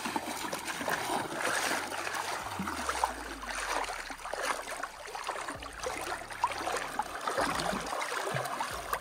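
A stream running, water rushing and trickling steadily.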